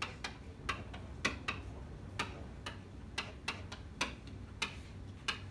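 Marker tip clicking and tapping on a whiteboard as letters are written: irregular sharp clicks, a few a second, over a steady low hum.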